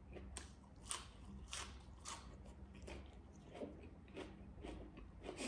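Close-up chewing of a crisp fresh leaf of greens, with a sharp crunch about every half second, turning to softer, wetter chewing about halfway through.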